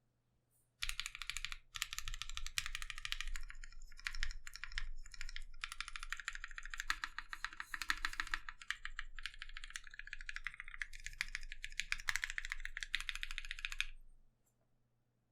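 Rapid, continuous typing on a Mekanisk Klippe S 60% mechanical keyboard with lubed 62g NovelKeys Cream linear switches, a gasket-mounted polycarbonate plate and CRP Tulip keycaps. The typing starts about a second in, with a few short breaks, and stops about a second before the end.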